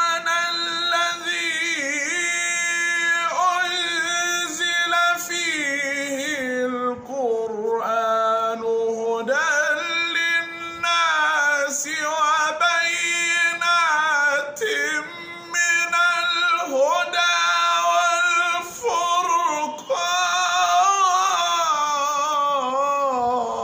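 A man's solo voice reciting the Qur'an in the melodic mujawwad style: long held notes ornamented with pitch slides and trills, in several long phrases with short breaths between them.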